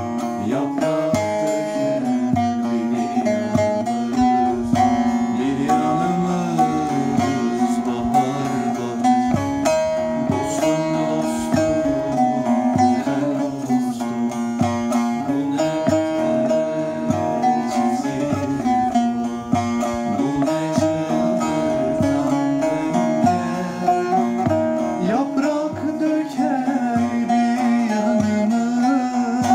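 A saz, the Turkish long-necked lute, being played: a plucked melody with quick strokes on the strings.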